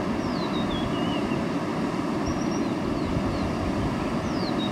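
Steady rushing of floodwater running over a flooded road crossing. A bird calls over it twice, each call a quick series of whistled notes stepping downward in pitch, about a second in and again near the end.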